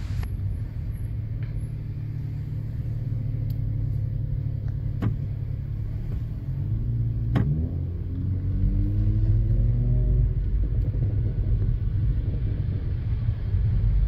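Fire truck diesel engine rumbling low, heard from inside a car. About seven seconds in it accelerates, its pitch rising over about three seconds, with a couple of sharp clicks around then.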